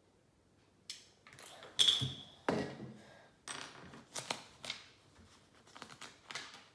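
Plastic Lego pieces being handled and pressed together: a series of irregular clicks and short rattles starting about a second in, loudest near two seconds in.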